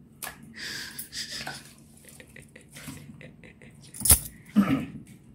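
Scraping and rustling of a hand mixing cooked rice on a steel plate, with small ticks against the metal and one sharp clink of the plate a little after four seconds in.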